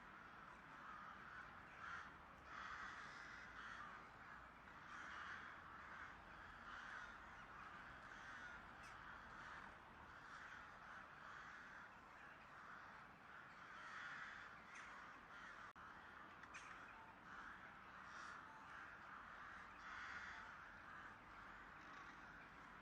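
Faint crow calls: hoarse caws repeated at irregular intervals.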